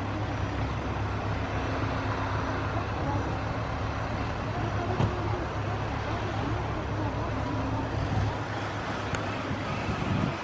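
Airbus A320's jet engines running steadily at low taxi power as the airliner rolls slowly along the runway: a constant low hum under an even rush.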